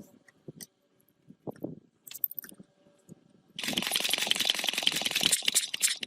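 A few light metallic clicks and knocks, then about two seconds of a fast, rattling buzz from a workshop tool that stops abruptly.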